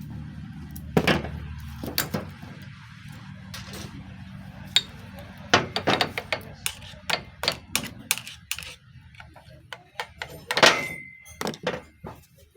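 Irregular sharp metallic clacks and knocks of engine parts being handled and rocked, as a connecting rod with a worn, loose bushing is checked for play. A low hum sits under the first few seconds, and a brief high squeak comes near the end.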